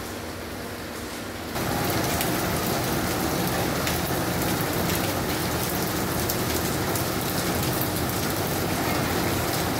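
Heavy rain falling, a loud steady hiss with scattered sharp drop ticks. It comes in suddenly about a second and a half in, after a quieter stretch.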